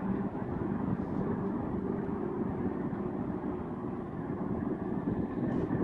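Tracked armored personnel carrier driving, with steady engine and track noise.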